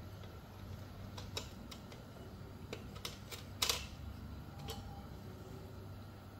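Scattered light clicks and taps of aluminium dhokla cups in a steamer plate as they are brushed with oil with a silicone pastry brush, the sharpest click a little past halfway, over a low steady hum.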